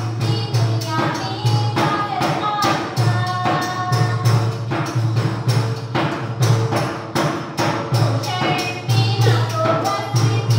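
Dance music with a quick, steady percussive beat and a melody line over it.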